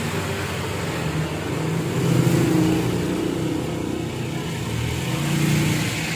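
Improvised torch flame running, a steady rushing noise over a low hum that wavers in pitch.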